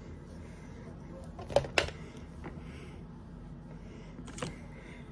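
Handling noise from small items being picked up and set down: two sharp clicks close together about a second and a half in, and another click near the end, over a faint steady room hum.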